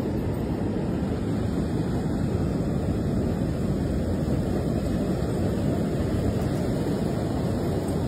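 Steady low rumble of wind on the microphone mixed with breaking surf, with no separate clicks or calls standing out.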